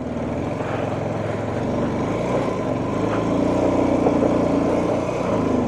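Vehicle engine running steadily under load, its pitch rising a little in the middle and easing again near the end.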